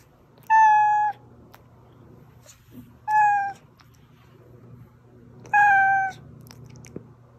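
Domestic cat meowing three times, about two and a half seconds apart; each meow is a short cry of about half a second, held at a steady pitch that drops slightly at the end.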